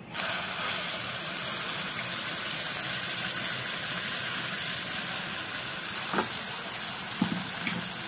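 Wet ground mint chutney hitting hot oil with mustard seeds and curry leaves in a kadhai, sizzling hard. The sizzle starts suddenly and holds steady, with a couple of soft knocks near the end.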